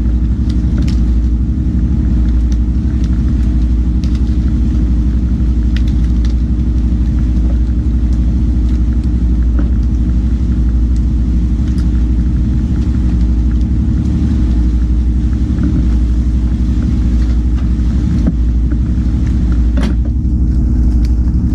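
A fishing boat's engine running steadily with a loud low rumble, with a few light knocks and clicks over it.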